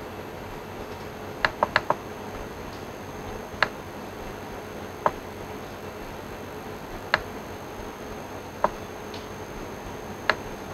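Sharp single clicks from working a computer: a quick run of four about one and a half seconds in, then one every second and a half or so. Beneath them runs a steady hiss with a faint hum.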